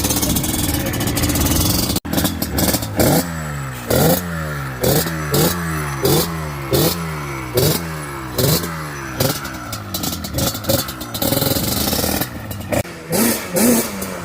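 Yamaha Banshee's twin-cylinder two-stroke engine running, then blipped over and over, about a dozen quick revs rising and dropping back at roughly one and a half a second.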